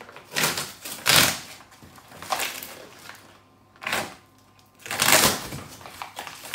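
A small blade slicing through packing tape and cardboard on a shipping box, with the cardboard scraping and tearing as the flaps are worked open, in about five rough bursts.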